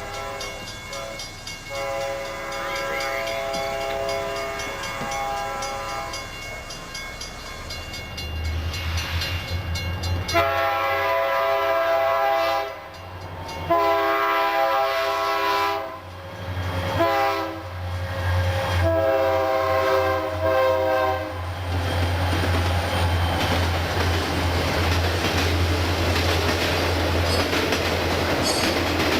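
A freight train's diesel locomotive air horn sounds for a grade crossing. After two opening blasts it gives the long, long, short, long crossing signal as the locomotive's engine drone comes up and passes. Freight cars then roll by with a steady rumble and wheel clatter.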